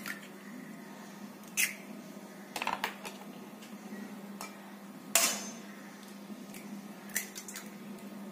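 Eggs tapped and cracked against the rim of a stainless steel bowl: a series of sharp taps and knocks, the loudest about five seconds in with a short metallic ring. A steady low hum runs underneath.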